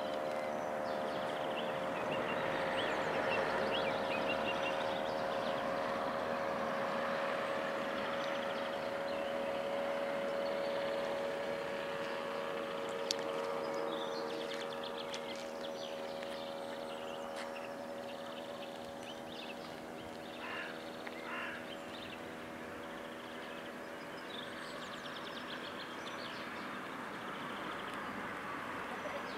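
A steady engine hum, strongest in the first half and fading after about 15 seconds, with small birds chirping now and then and a single sharp click about 13 seconds in.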